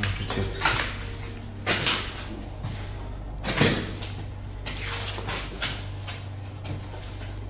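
Knocks and scuffs from a door being handled, mixed with footsteps on a bare floor. The loudest knocks come about one, two and three and a half seconds in, over a steady low hum.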